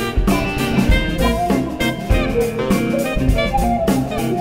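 A jazz septet playing an instrumental piece, with melody lines over drum kit.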